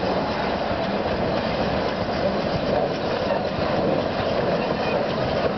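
Puffing Billy narrow-gauge steam train running past, the steam locomotive working and its carriages rolling onto a wooden trestle bridge, heard as a steady, dense rushing noise.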